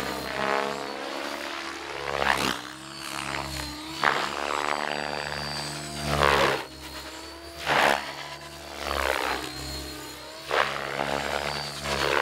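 Compass Chronos 700-size 3D RC helicopter in aggressive flight: its rotor and drive whine swings up and down in pitch and loudness as it flips and dives, with several loud blade swishes.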